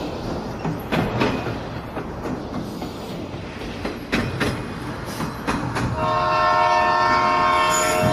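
Passenger train running, heard from inside the coach by an open window: a steady rumble of the wheels with irregular clacks over rail joints. About six seconds in, a long, steady multi-tone train horn starts and keeps sounding.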